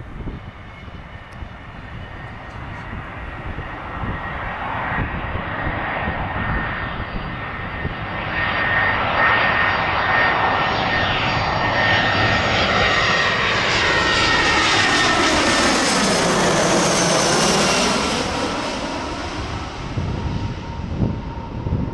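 Twin-engine Airbus A320-family jet airliner on final approach with its landing gear down, flying low overhead. The engine whine and rush build up, are loudest about two-thirds of the way through with the pitch sliding down as it passes, then fade as it flies away.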